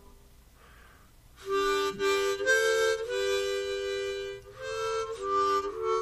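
Harmonica music: slow held chords of several notes, changing in steps, starting about a second and a half in.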